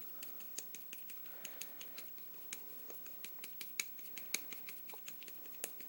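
Soldering-iron tip lightly tapping a plastic pistol grip panel while stippling it, making quick irregular light clicks, several a second.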